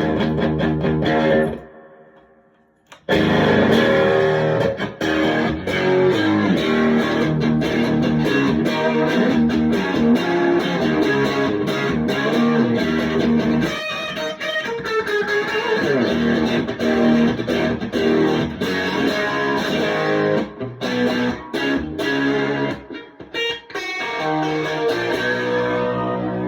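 Electric guitar played through a 1978 Marshall 4140 Club and Country tube combo, fitted with new Celestion speakers, with the gain turned up. The playing breaks off for a second or so near the start, then runs on with notes and riffs.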